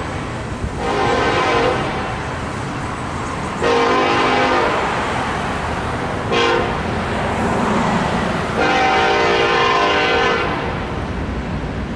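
Freight locomotive's multi-chime air horn sounding the grade-crossing signal: a blast of about a second, a longer blast, a short toot, then a final long blast, over the low rumble of the approaching train.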